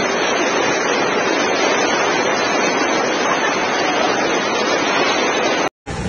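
Floodwater rushing down a street as a fast, turbulent torrent: a steady, dense rush of water that cuts off abruptly near the end.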